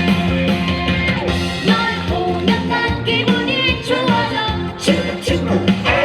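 Upbeat pop-rock song with a steady beat, and a voice singing from about two seconds in.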